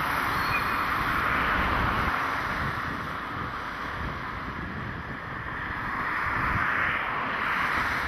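Wind buffeting the microphone, an uneven low rumble over a steady distant hiss that swells and eases.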